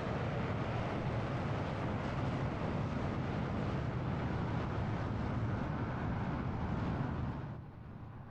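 Jet aircraft engines at takeoff thrust, a loud steady roar that drops away sharply near the end.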